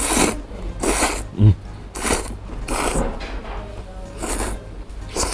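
A person slurping very thick Yoshida-style udon noodles: about five sharp sucking slurps, roughly one a second. A brief low hum of the voice comes about one and a half seconds in.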